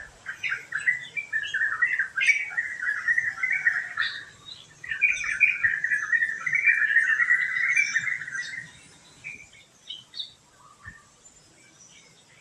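Songbird chattering in two long runs of rapid notes, each lasting a few seconds, followed by a few scattered single calls near the end.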